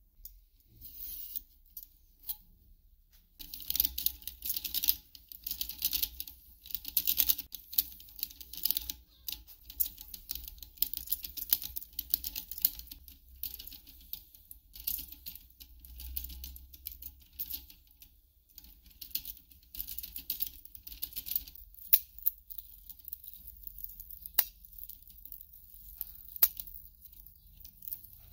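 Small slip roll curling a thin metal strip into a band: a long run of rattly scraping as the rollers turn and the sheet rubs through them, then three sharp metallic clicks near the end.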